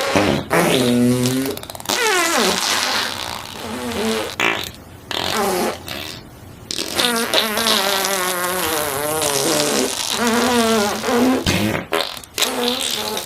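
A run of fart sound effects, one after another with short gaps between them, some short and sliding down in pitch, others long and wavering.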